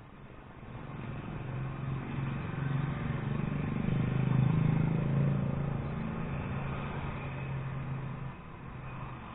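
A motor vehicle's engine with a steady low hum that grows louder to a peak about four to five seconds in, then eases off and drops back near the end, like a vehicle going by.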